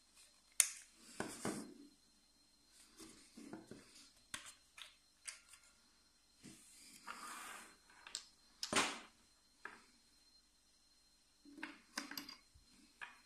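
Scattered plastic clicks and short rustles as a handheld infrared thermometer is handled, its battery compartment opened and batteries fitted, with the sharpest click near the middle.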